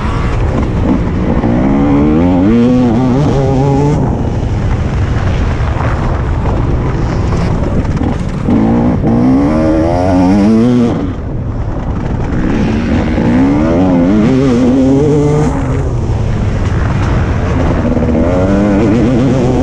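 TM 300 two-stroke motocross bike's single-cylinder engine being ridden hard, revving up and dropping back over and over as the throttle is worked through the turns, with a brief throttle-off about eleven seconds in.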